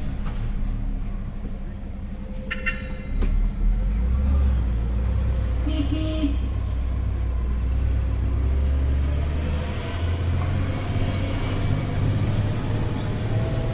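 Engine and road noise of a moving vehicle heard from inside its cabin: a steady low rumble that swells and eases as it drives. A brief higher-pitched sound comes about two and a half seconds in.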